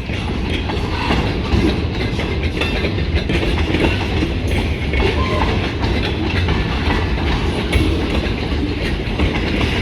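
Freight train of empty pulpwood railcars rolling past: a steady rumble of steel wheels on rail, with a few louder knocks.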